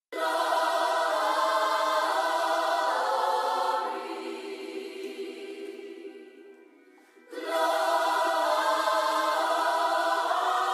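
Music intro: a sustained choir-like vocal pad with no bass, fading away about four seconds in to near silence, then coming back abruptly about seven seconds in.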